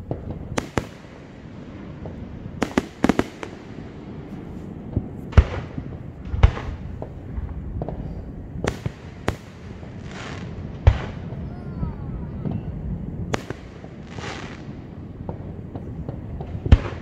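Aerial fireworks shells bursting during a display: about a dozen sharp bangs at uneven intervals, the loudest about five, six and eleven seconds in. A few bursts give a short hissing crackle.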